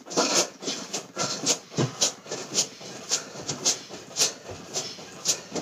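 Bare feet landing on a yoga mat in a steady rhythm of about two jumps a second, mixed with breathing from the exertion of side-to-side ski jumps.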